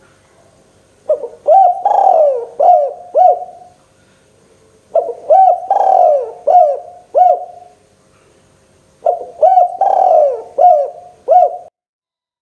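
Spotted dove (tekukur) cooing: three phrases of about five short coo notes each, roughly four seconds apart.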